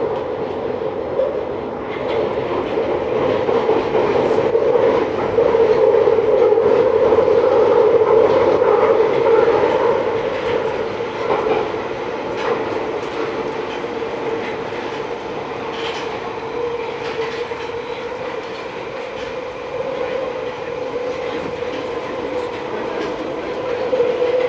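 A London Underground 1973 stock Piccadilly line train running, heard from inside the carriage: a steady rumble with a droning tone, louder for a few seconds in the first half.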